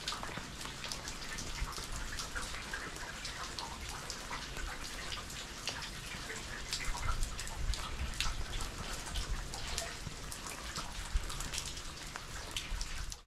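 Steady rain, with many separate drops landing close by.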